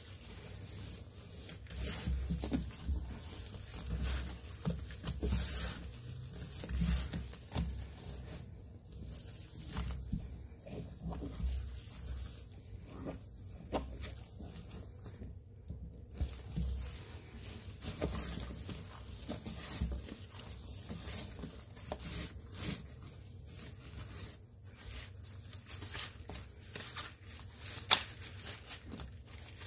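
Gloved hands kneading and squeezing a thick wet paste of Comet scouring powder, Ariel detergent and Fabuloso cleaner: irregular wet squelching and crackling with soft thuds, and a couple of sharper pops near the end.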